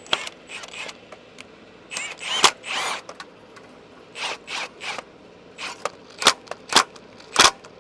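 Irregular short metallic knocks, clicks and scrapes of tools and equipment being handled, about a dozen separate strokes with no steady machine sound.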